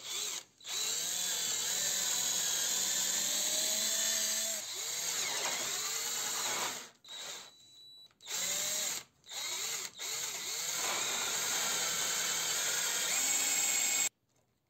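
Cordless drill with a twist bit boring a dowel hole into the mitred corner of a pine frame. The motor whines, speeding up and slowing with the trigger, and stops and restarts several times before it cuts off near the end.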